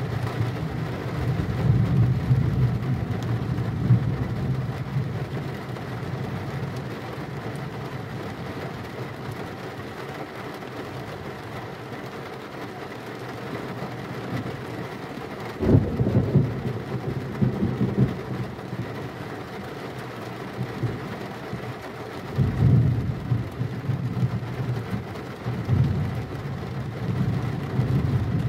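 Steady rain with rolling thunder. A sudden loud thunderclap comes a little past halfway and rumbles on for a few seconds, and shorter rumbles follow near the end.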